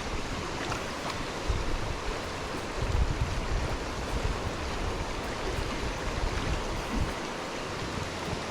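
Steady rush of a stream running high after rain, with low rumbles of wind on the microphone about one and a half and three seconds in.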